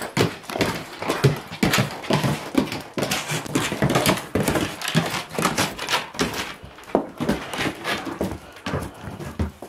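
Excited podenco dogs jumping and scrabbling about on a wooden floor, with a fast, irregular clatter of claws and paws throughout.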